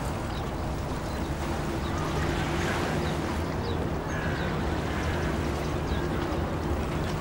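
Steady low drone with a few held low tones over a noisy, even background hiss; nothing sudden stands out.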